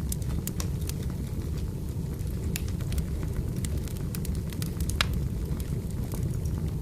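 Firewood burning: a steady low rumble of flames with scattered sharp crackles and pops, one louder pop about five seconds in.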